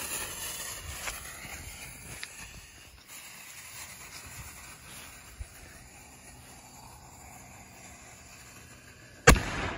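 A lit firework burning on the ground with a steady hiss and a few faint crackles, fading gradually, then one sharp, loud bang about nine seconds in.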